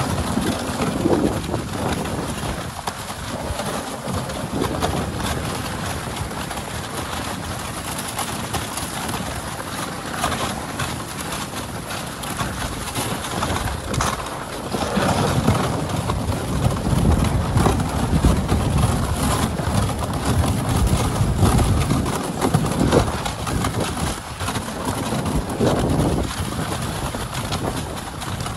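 A dog sled running along a snowy trail: runners scraping and hissing over the snow, with a low rumble of wind on the microphone that grows heavier for several seconds in the middle.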